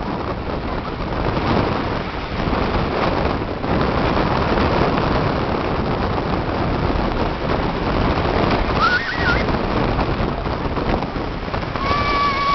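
Steady rushing noise of wind buffeting the microphone and surf on a sandy beach. Two brief high-pitched cries cut through it, one about nine seconds in and another near the end.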